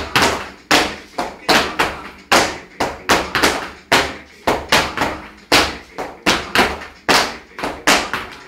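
Flamenco dancers' heeled shoes stamping on a hard floor in footwork, loud sharp strikes about three a second in a steady rhythm that stops shortly before the end.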